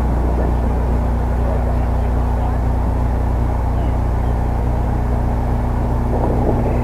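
Steady low rumble and hum of outdoor background noise, even throughout, with no distinct hits or calls.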